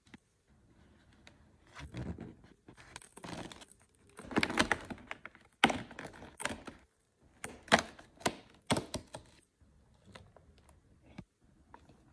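Fingers pressing in and tearing open a perforated cardboard advent calendar door: scraping and rustling, then a run of sharp cracks as the cardboard gives way and the plastic tray inside is worked loose.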